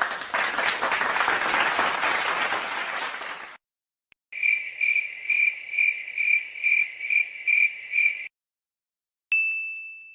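Three stock sound effects in a row: a burst of rushing noise lasting about three and a half seconds, then a cricket chirping a little over twice a second for about four seconds, the 'awkward silence' gag effect, then a single bright ding that rings out and fades near the end.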